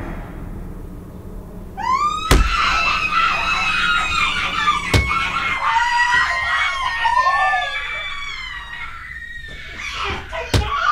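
A long, high-pitched scream that rises in at about two seconds in and holds, wavering, until about eight seconds in. Heavy thuds fall about two seconds in, about five seconds in and near the end.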